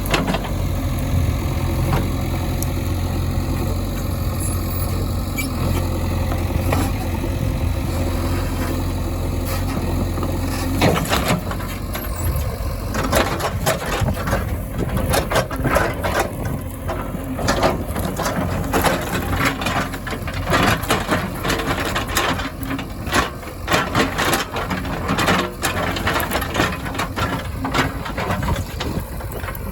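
Heavy diesel machine engine idling steadily. About eleven seconds in, a long run of irregular knocks and clatter starts over the engine and carries on to the end.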